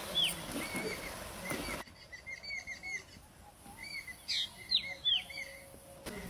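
Birds calling: a string of short, repeated chirps with a few sharp falling whistle notes among them, over a steady background hiss.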